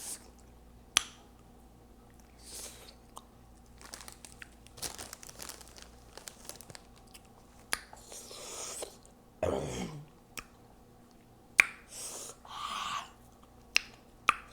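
Close-miked chewing and wet lip smacking on Hot Cheeto Puffs, with sharp mouth clicks every few seconds. About two-thirds of the way through comes one short, low throat sound that falls in pitch.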